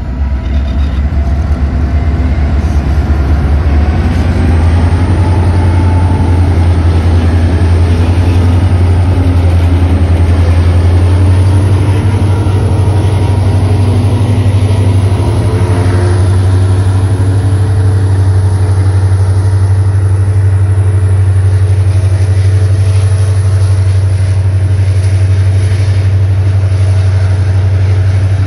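Diesel locomotives G523 and XR559 hauling a grain train past, their engines giving a deep, steady note under power. The train's grain hopper wagons roll by behind them.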